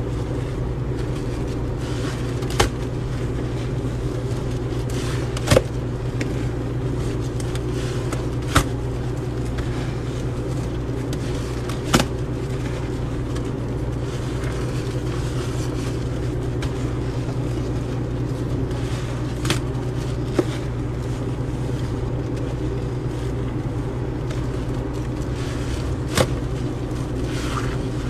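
A steady low hum, with seven short sharp clicks scattered through it.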